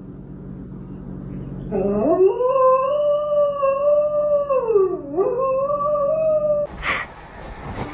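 A dog howling: one long howl of about five seconds that rises at the start, dips low in pitch partway through, climbs back up and then breaks off.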